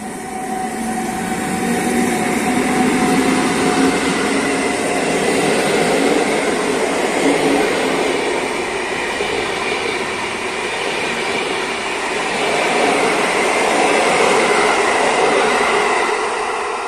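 EU160 electric locomotive and its Intercity passenger coaches passing through the station at speed: a loud, steady rush of wheels on rail that swells twice as the coaches go by and fades near the end.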